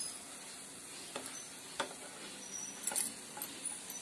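A flat spatula ticking and scraping against a nonstick pan a few times as it lifts a cooked paratha, over a light sizzle of ghee on the hot pan.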